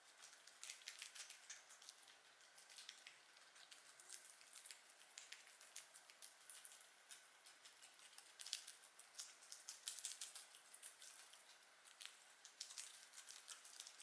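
Guinea pigs chewing lettuce and carrot: faint, irregular crunching clicks in quick succession.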